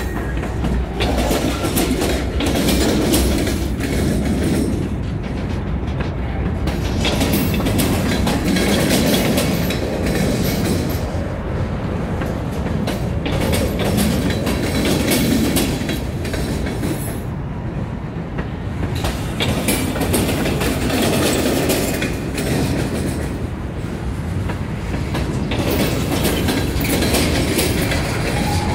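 Freight cars rolling past at close range: steady rumble of steel wheels on rail, swelling and easing as each car goes by, with a regular clickety-clack as the wheels cross rail joints.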